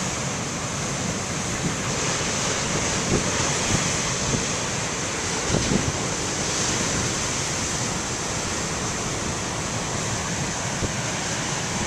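Big ocean waves breaking, a steady rush of surf, with wind buffeting the microphone in a few brief gusts.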